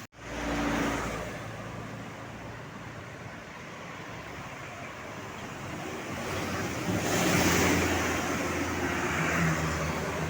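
Road traffic going past with wind buffeting the microphone. One vehicle swells past about a second in and a louder one from about 6 to 9 seconds in. No melodic horn is heard.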